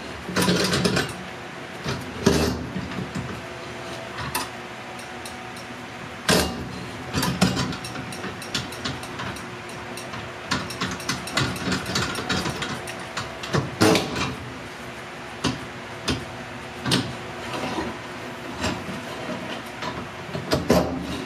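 A fender roller being worked around a car's rear wheel arch: irregular metallic clicks and clacks from the tool's pivot and hub mount as the roller is pushed along the fender lip.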